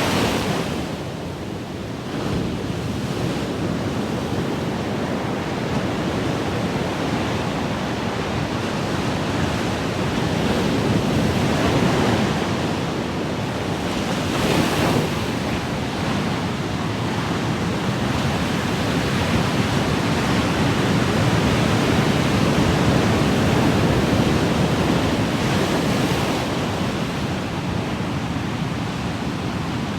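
Ocean waves washing in: a steady rush of surf that swells and eases, with a few stronger waves breaking about a third of the way in, around halfway and near the end.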